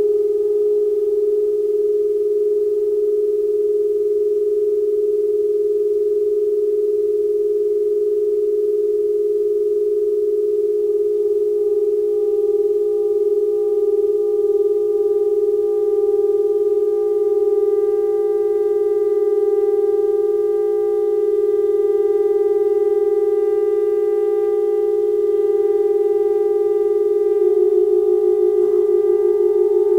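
Saxophone quartet and electronics holding a slow just-intonation drone: one strong sustained tone, with quieter higher pitches entering and holding above it. Near the end another note joins and the low tone takes on a fast pulsing.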